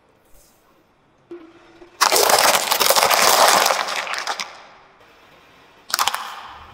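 Clear plastic food trays and their crunchy contents being crushed under a car tyre. A dense crackling crunch starts suddenly about two seconds in, lasts about two and a half seconds and fades. Another sudden crunch comes near the end.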